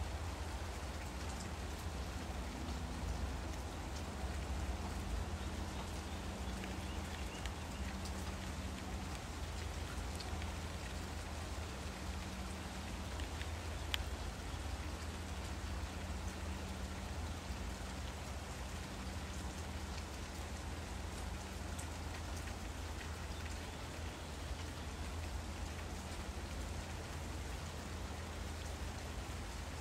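Steady hiss like falling rain, with a low hum under it and a single faint tick about halfway through.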